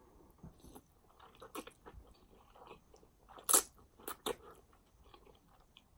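Close-miked chewing and mouth sounds: a string of short wet clicks and smacks, the loudest about three and a half seconds in.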